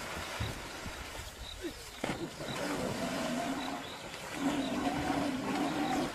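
Water churning and splashing as an antelope struggles in a river under attack. In the second half a drawn-out pitched sound comes twice, the second time longer and louder.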